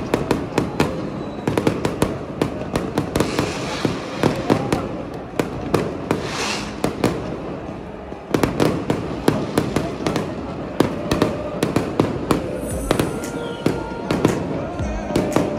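Fireworks going off over a stadium: many quick, irregular bangs and crackles in rapid succession.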